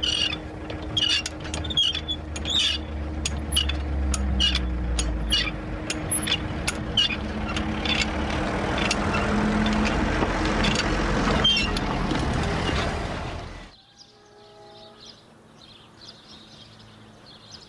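Hand-cranked level-crossing barrier winch clicking a few times a second as it is wound to raise the barrier, over a car engine running and growing louder as the car pulls across. About fourteen seconds in the sound drops away abruptly to a faint outdoor background.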